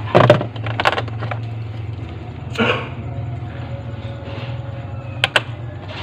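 Sharp clicks and knocks from hands handling wires and parts during refrigerator rewiring, the loudest just after the start and a close pair near the end, over a steady low hum.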